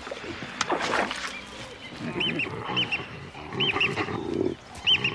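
Baboons fighting over a kill: scuffling, then low grunts and growls. Short high arched calls, often in pairs, recur through the second half.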